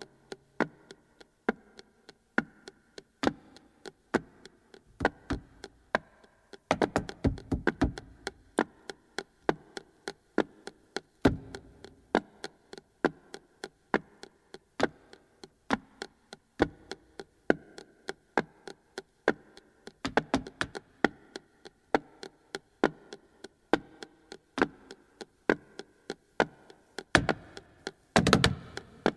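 Flamenco footwork: a dancer's heeled shoes striking a wooden stage floor with no accompaniment. Sharp, spaced strikes come roughly one or two a second, broken by quick rolls of rapid heel-and-toe beats about seven seconds in and near the end.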